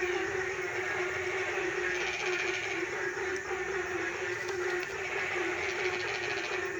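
A chorus of blentung frogs calling: many overlapping low, droning calls run together into a steady hum. A fast, ticking trill sounds over it for a couple of seconds in the middle.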